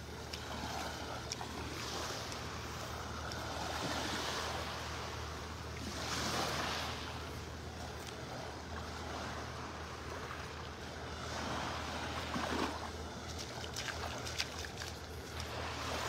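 Gentle surf: small waves washing up onto a sandy beach from calm water, swelling softly every few seconds.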